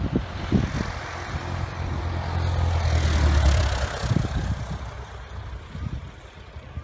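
Single-engine Cessna gliding in low with its engine throttled back to idle: a low engine drone and rushing air swell as it passes close, peak about three seconds in, then fade as it moves away down the strip.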